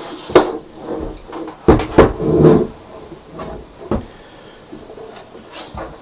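Irregular knocks and clunks of the metal gantry and frame of a Geeetech A20 3D printer being handled and fitted together, the loudest pair about two seconds in.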